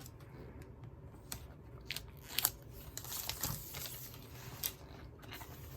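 Packaging and planner papers rustling and crinkling as they are handled, with scattered light clicks and taps.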